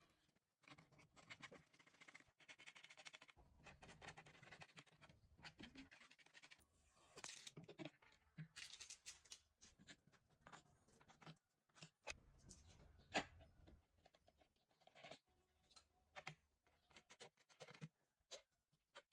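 Faint handling noises of computer parts during a PC build: irregular scratches, rustles and small clicks, with the sharpest click about 13 seconds in.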